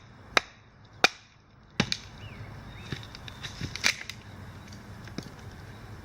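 A handful of sharp, hard knocks or cracks at irregular intervals, the loudest about a second in.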